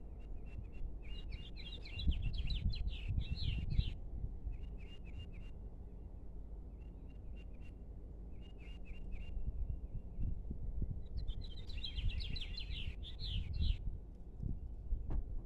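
Small birds singing in the open: runs of short, evenly repeated chirps, with two longer twittering phrases, one about a second in and one about eleven seconds in. Under them is a steady low rumble.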